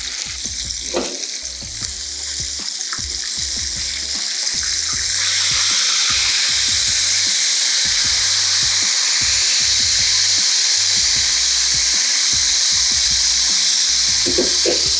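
Flour-coated flounder head frying in a pan of hot oil: a steady, loud sizzle that steps up in loudness about five seconds in, with a few faint clicks from the tongs and spatula as the fish is turned.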